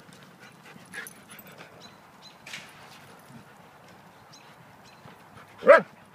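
Dogs playing rough, with faint scuffling and one short, loud bark near the end.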